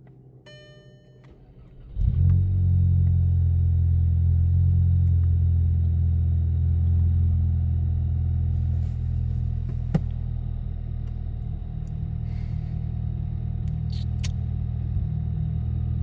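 Audi 1.8 TSI four-cylinder turbo petrol engine starting about two seconds in after a short run of electronic beeps, then idling steadily and settling to a lower level. The engine has an idle misfire that cleaning the spark plugs was meant to cure.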